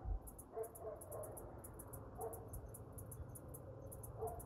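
Dogs barking faintly in the distance: a handful of short barks, several in the first second or so, one just past two seconds and another near the end.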